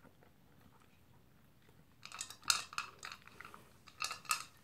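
A dog eating from its bowl: a few clusters of crisp crunching chews starting about two seconds in.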